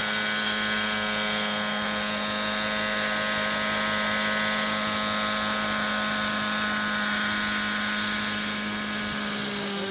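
Thunder Tiger Raptor 90 nitro RC helicopter hovering low: a steady high-pitched whine from its glow engine and rotors. The pitch drops slightly near the end as it comes in to land on the pad.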